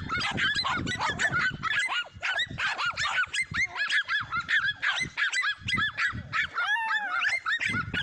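Several dogs barking and yapping in a rapid, continuous stream, with a falling whine near the end.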